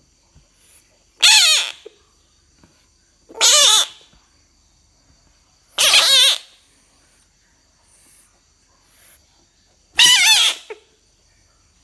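A frog giving four loud, high, wavering cries about half a second each, the first three roughly two seconds apart and the last after a longer pause.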